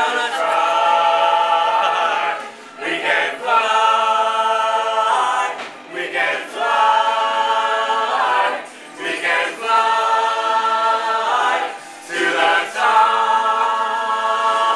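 A choir of mixed voices singing together in harmony. They hold long chords in phrases of about three seconds, with brief breaks between.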